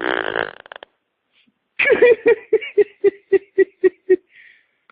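A fart ending in a fluttering sputter that dies away within the first second. Then a person laughs in about ten short 'ha' bursts, about four a second, before tailing off.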